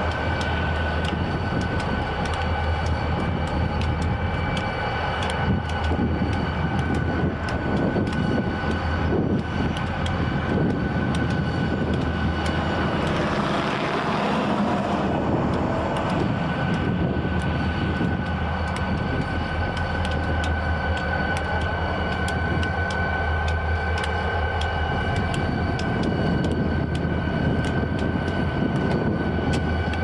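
Freight train rolling past: a steady low diesel rumble with a steady high whine over it, and many sharp clicks of wheels over rail joints, with a brief hissing swell about halfway through.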